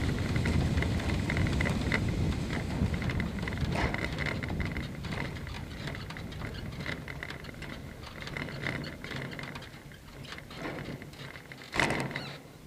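Blanik L-13 glider cockpit noise: rushing air and many small rattles fading steadily as the glider slows, ending with a single loud clunk near the end.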